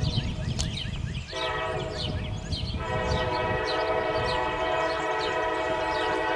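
Diesel locomotive's multi-note air horn sounding continuously as a northbound Norfolk Southern intermodal train approaches, its chord thinning and filling out as notes drop out and come back in. A low rumble under it fades about a second in.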